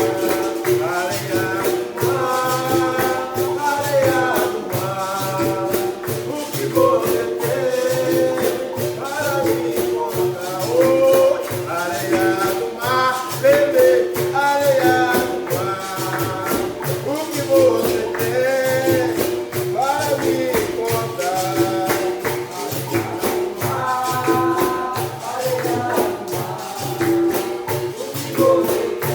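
Capoeira roda music: a pandeiro and percussion keep a steady, even beat under berimbau and group singing in call-and-response.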